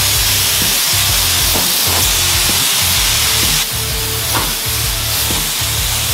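Compressed air hissing steadily from a shop air hose, easing a little about three and a half seconds in, over background music with a steady beat.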